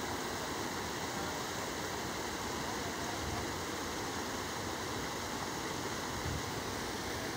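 River water pouring over a low concrete weir, a steady rushing noise.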